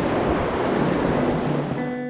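Loud, steady rush of river water with wind buffeting the microphone, fading out near the end as acoustic guitar music comes in.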